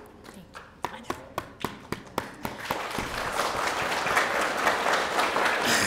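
Audience applauding: a few scattered separate claps at first, filling in after about two and a half seconds into steady applause from the whole crowd.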